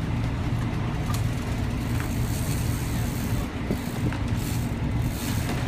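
Boat engine running steadily with a low drone, mixed with wind and water noise.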